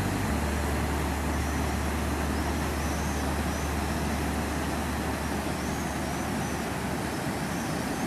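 Steady rushing of river water pouring over a low weir, mixed with the rumble of road traffic on a nearby bridge.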